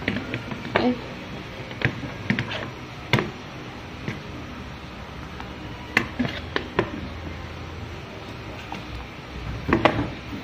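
Pieces of milkfish dropped into a pan of broth at a hard boil: irregular sharp splashes and knocks against the pan, over the bubbling of the boil.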